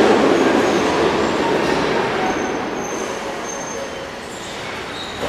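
Metro train rumble fading steadily as a train pulls away out of the station, with a few faint high whines in it.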